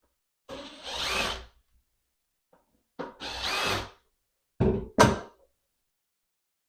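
Cordless drill-driver running in two short bursts, about a second each, backing out the screws of the old deadbolt. Two sharp knocks follow in quick succession.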